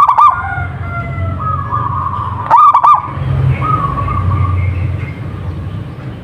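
Zebra dove (perkutut) cooing: two short, loud bursts of quick rolling coo notes, one at the start and one about two and a half seconds in, over a steady low hum and fainter drawn-out calls.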